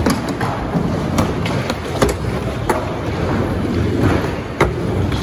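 Skateboard wheels rolling on concrete, with sharp clacks of boards hitting the ground about five times.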